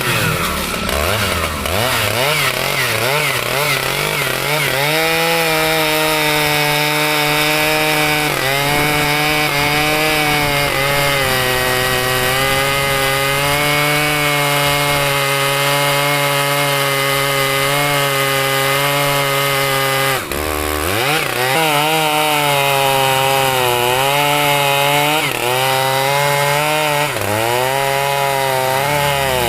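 Two-stroke chainsaw running at high revs, cutting through mahogany wood. The engine pitch sags and recovers as the chain takes load, drops sharply and revs back up about 20 seconds in, and wavers repeatedly near the end.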